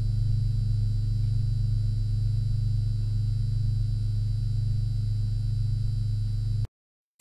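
Background music: a low, steady held drone note that cuts off abruptly to silence near the end.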